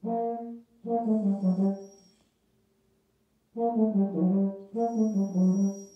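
Baritone horn playing four short melodic phrases of held and stepping notes in its middle register, with a pause of about a second after the second phrase.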